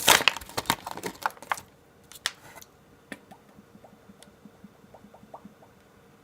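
Plastic packaging crinkling and small toy pieces being handled: a dense run of crackles and clicks for about the first second and a half, then only a few faint clicks and taps.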